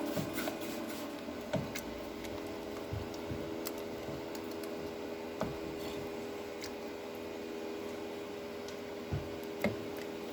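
Steady low hum in a kitchen with a few scattered light taps and clicks from pots and utensils, two of them clearer near the end.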